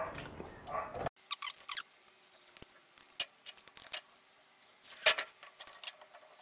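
Light, scattered clicks and taps of metal bicycle parts and a wrench being handled, some of them in small clusters.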